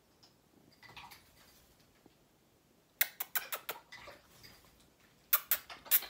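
African grey parrot splashing in its water bowl, dipping and fluttering its wings in the water: a quick run of sharp splashes about three seconds in, then another run near the end.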